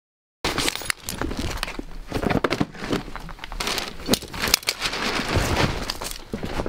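Caving gear being dropped onto a pile on tarmac, starting about half a second in: metal carabiners and descenders clinking and rattling irregularly, with webbing harnesses and a bag rustling.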